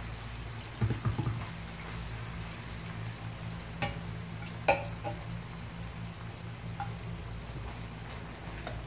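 Minced meat sizzling as it fries in oil in a non-stick pan, over a low steady hum. A spatula knocks against the pan a few times about a second in, with sharper taps around the middle, the loudest just before halfway.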